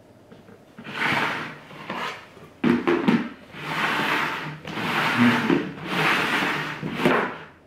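Upturned plastic mixing bowls slid and scraped around on a wooden tabletop: a run of about six scraping swishes, with a sharp knock about a third of the way in.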